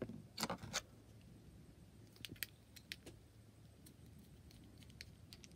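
Faint, scattered small clicks and taps, with two louder ones in the first second and fainter ones spread through the rest.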